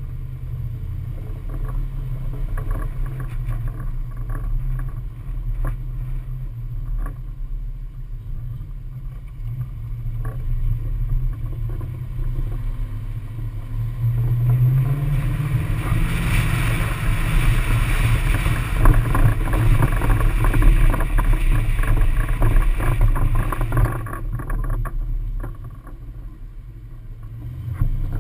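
Hummer H2 driving, heard from a camera mounted on its roof: a steady low engine and road drone with a light, irregular rattle from the roof rack's cross bar. Wind noise on the microphone grows much louder in the middle, and the level drops briefly near the end.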